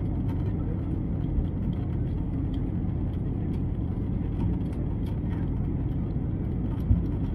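Steady low rumble of cabin noise inside an Airbus A321neo airliner, with a light thump about a second in and a sharper one near the end.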